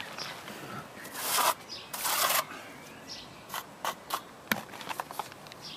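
Steel plastering trowel scraping wet sand-and-cement render, two strong scrapes about one and two seconds in, followed by several short clicks and a sharp tap of the trowel.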